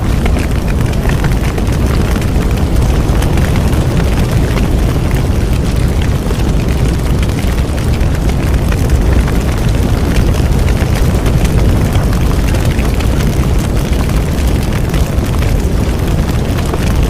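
Bonfire burning: a steady, loud low rumble with constant crackling and popping throughout.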